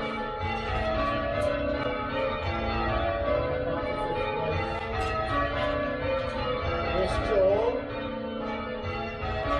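Church tower bells rung in changes, several bells striking one after another in a steady, overlapping round.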